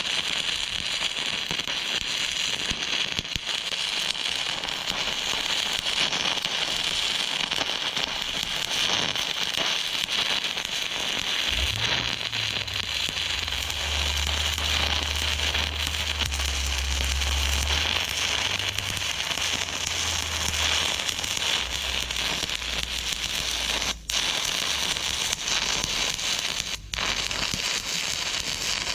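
Stick-welding arc crackling steadily as a rod burns along a weld bead, with two brief dropouts near the end.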